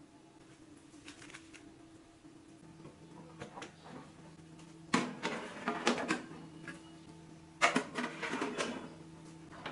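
Wire oven rack and aluminium foil baking tray clattering and scraping as the tray is slid into a small countertop electric oven, with a sharp clatter about five seconds in and a second burst of rattling near eight seconds. A faint low steady hum runs underneath.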